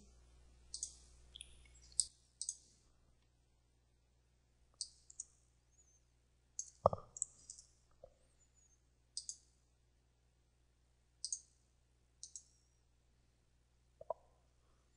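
Quiet computer mouse button clicks, sparse and often in quick pairs, as the Paint tools are picked and the canvas zoomed. A brief dull thump about seven seconds in.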